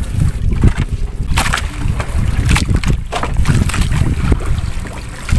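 Fishing net being hauled in by hand over the side of a boat, with irregular knocks and splashes over a steady low rumble.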